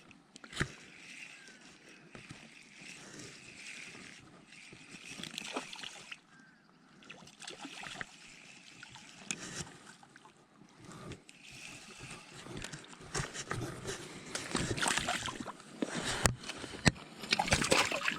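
River water running and sloshing, with scattered small splashes and clicks that get louder and busier over the last few seconds.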